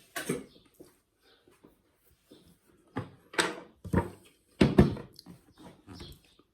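A person hiccuping: several short, sudden hics at irregular intervals, the loudest about three to five seconds in.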